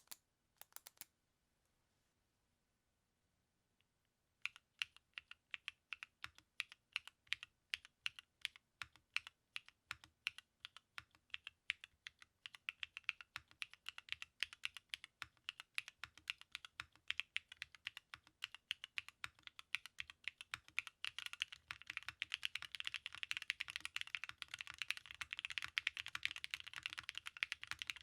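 Typing on a custom Calice mechanical keyboard with Techno Violet linear switches, a polypropylene plate and Cherry Blossom keycaps. A couple of key presses at the start, then a pause, then separate keystrokes from about four seconds in that speed up into fast continuous typing over the last several seconds.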